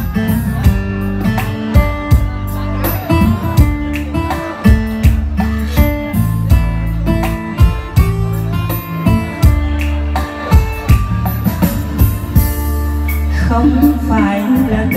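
Electronic keyboard playing a song's instrumental interlude, with a steady drum beat, bass and a plucked, guitar-like melody. A woman's singing comes in near the end.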